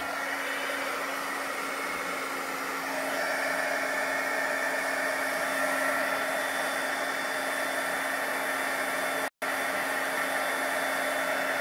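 Embossing heat gun blowing steadily with a constant low hum, melting a layer of gold embossing powder. Its sound brightens a little about three seconds in and breaks off for an instant near the end.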